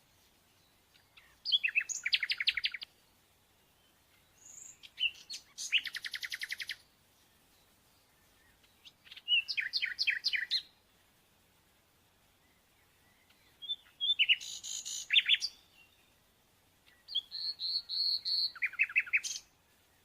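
A songbird singing: five short phrases of fast, trilling repeated notes, each about two seconds long, with pauses of about two seconds between them.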